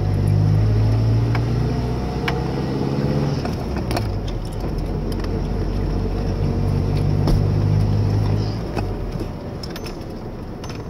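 Ford pickup engine heard from inside the cab while driving with a five-speed manual. The engine note climbs for the first three and a half seconds, drops back as gears are changed, pulls again and then eases off near the end. A few light jingling clicks sound in between.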